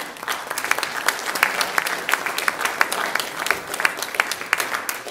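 Audience applauding: many hands clapping, starting suddenly and keeping up a dense, even patter of claps.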